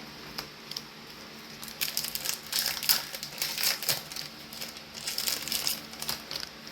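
Magic: The Gathering booster pack and cards being handled by hand: a dense run of crinkling and sharp clicks starting about two seconds in and stopping shortly before the end.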